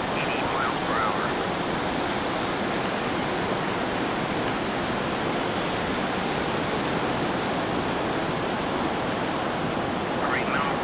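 Ocean surf washing onto the beach: a steady, even rushing noise, with a few short wavering high-pitched calls near the end.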